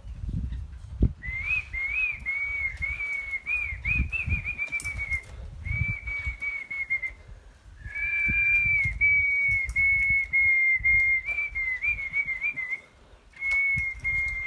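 Clear, high whistling held on nearly one pitch with small wavering steps, in long phrases of several seconds each with short breaks between them.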